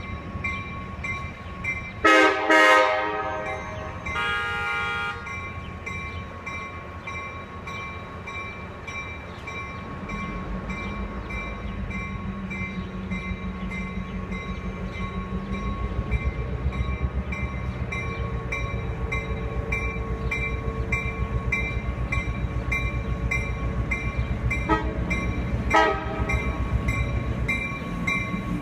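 Train horn sounding a long blast about two seconds in and a second one shortly after, then the low running rumble of a train building as it draws nearer, with two short horn toots near the end. A faint high ding repeats steadily throughout.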